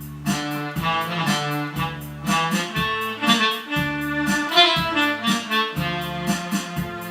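Electronic keyboard playing a Korean trot melody over a steady bass line and repeating chord accompaniment.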